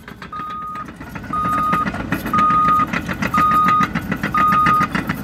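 Caterpillar crawler bulldozer backing up: its reversing alarm gives a half-second beep about once a second, five times, over the diesel engine running and the clatter of its steel tracks. The engine and track noise gets louder about a second and a half in.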